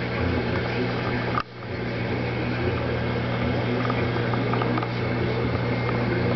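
Aquarium filter running: a steady low hum under an even hiss, with a brief drop in level about a second and a half in.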